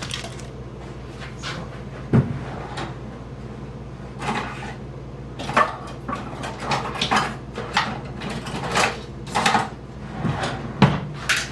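Kitchen handling noises: a string of separate knocks, clicks and rustles as things are moved about, with a heavier thump about two seconds in and a steady low hum underneath.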